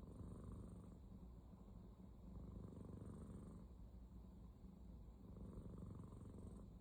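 Cat snoring faintly: a low fluttering rumble that swells with each breath, three breaths about two and a half seconds apart.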